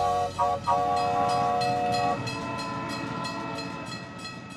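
Train whistle sounding a chord of several notes in short toots and then one longer blast that stops about two seconds in. Then comes a fast, even clickety-clack of train wheels on rail joints that fades away.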